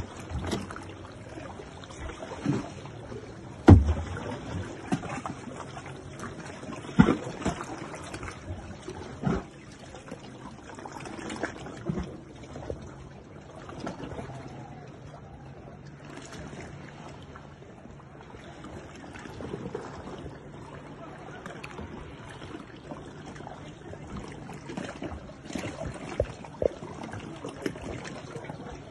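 Paddle strokes of a sea kayak moving through calm water: irregular splashes and a few sharp knocks a few seconds apart, the loudest about four and seven seconds in.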